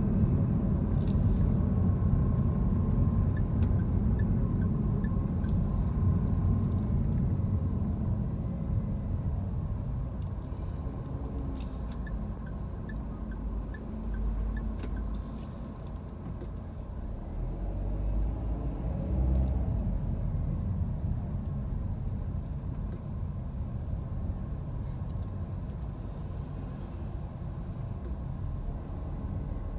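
Car interior road noise while driving in city traffic: a steady low rumble of engine and tyres that eases off about halfway through and swells again a few seconds later, with a few faint ticks and clicks.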